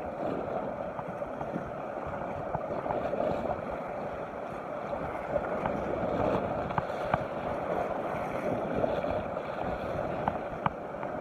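Choppy sea waves washing and splashing against shoreline rocks: a steady rushing wash of water, with a few faint ticks here and there.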